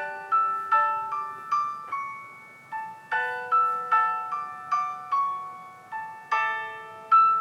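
An instrumental music track with bell-like struck notes, each ringing out and fading, at about two notes a second with occasional chords. It plays through an iPhone's built-in stereo speakers, with almost no deep bass.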